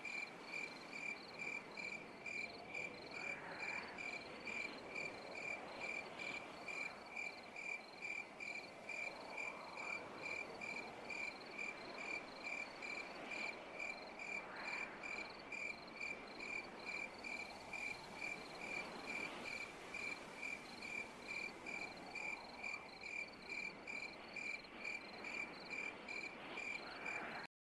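A cricket chirping in a steady, even rhythm of about two to three chirps a second over a faint hiss. The chirping cuts off suddenly near the end.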